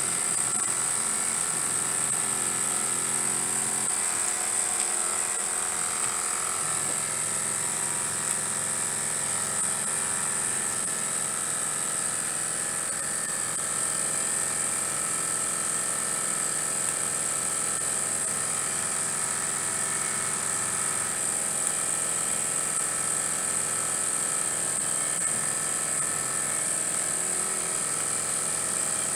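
Model horizontal mill steam engines running steadily on their boilers: a fast, even mechanical whirr from the small engines with a constant high steam hiss.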